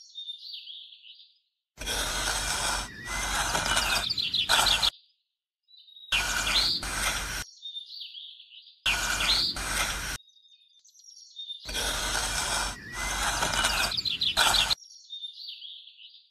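Small hand trowel scraping lines into sand in four stretches of a second to three seconds, each starting and stopping abruptly, with bird chirps in the gaps between them.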